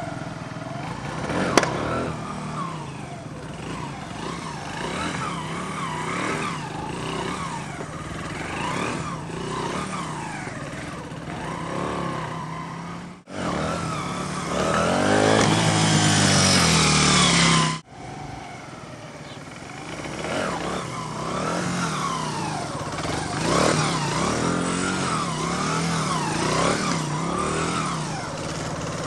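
Honda XR100 motard's single-cylinder four-stroke engine revving up and down again and again. Partway through comes a louder stretch with a long rising rev, starting and stopping with abrupt cuts.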